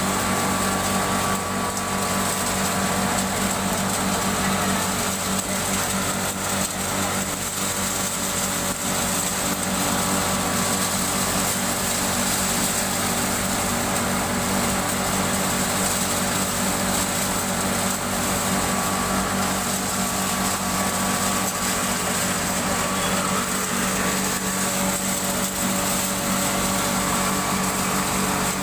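Electric pulverizer (hammer-mill herb grinder) running steadily: a constant motor hum with a high whirring hiss over it.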